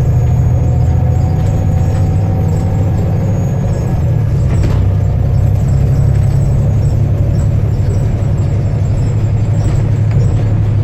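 Volvo B7TL double-decker bus's diesel engine running with a steady deep drone and a faint turbo whistle over it.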